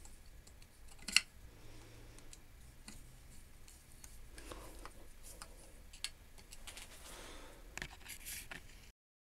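Screwdriver turning screws into the steel carrier plate of a small metal guillotine: faint metal-on-metal scraping and clicking, with a sharp click about a second in and another near six seconds.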